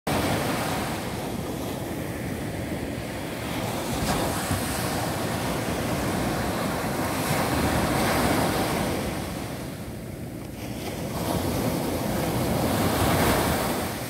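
Small ocean waves breaking and washing up on a sandy beach, a continuous surf wash that swells and eases, louder around the middle and again near the end.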